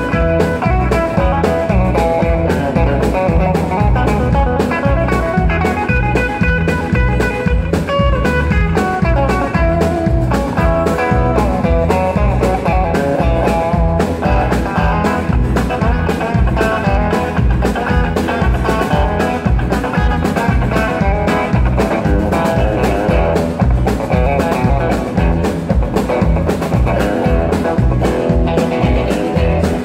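Live country band playing an instrumental passage: an electric guitar leads over a steady drum beat and a strummed acoustic guitar.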